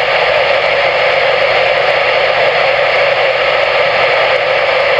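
Steady static hiss from a CB radio receiver on channel 22, with no voice coming through between transmissions.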